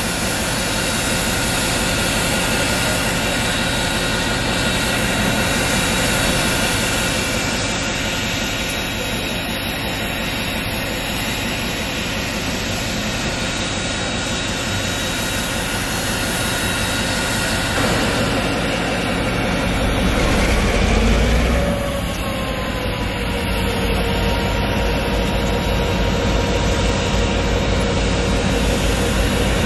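Steam locomotive No. 425, a Baldwin 4-6-2 Pacific, standing under steam with a steady, loud hiss of escaping steam. About twenty seconds in it swells briefly louder, and a deeper rumble carries on after.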